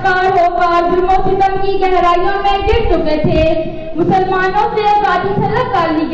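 A boy singing unaccompanied into a microphone, a melodic recitation with long held notes and short breaths between phrases.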